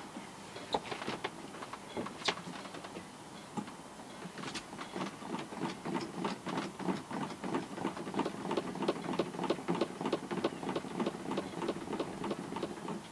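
Self-priming jiggle siphon in a jerry can of diesel: its valve clicks and rattles, a few scattered clicks at first, then a fast, even rattle of about four to five clicks a second from about four seconds in.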